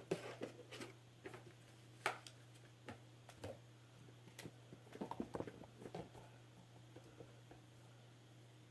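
Scattered light knocks, taps and rustles of hands feeling around among objects while searching blindly by touch for the borax. The sharpest knocks come at the start and about two seconds in, with a cluster of quicker taps around five to six seconds in, over a steady low hum.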